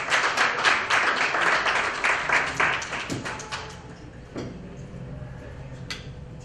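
Audience applause, dense with distinct claps, dying away about four seconds in. It leaves quieter room noise with two single knocks.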